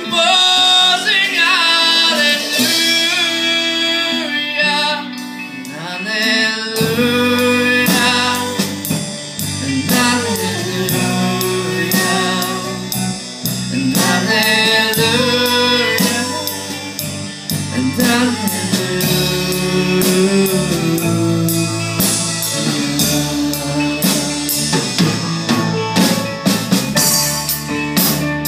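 Live worship band playing a song: singing over electric guitar, keyboard and drums, with deep bass notes joining about seven seconds in.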